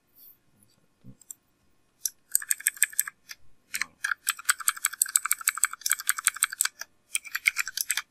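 Computer keyboard typing: quick runs of keystrokes start about two seconds in, with short pauses about a third of the way through and again near the end.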